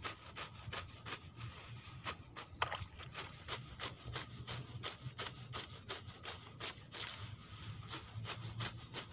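Sickle cutting through clumps of grass close to the ground: a quick, steady run of short cutting strokes, about three or four a second.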